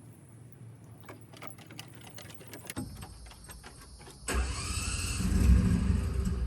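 Husqvarna zero-turn mower engine being started: a few small clicks, a low rumble as it turns over, then it fires about four seconds in and runs loudly, rising briefly before settling.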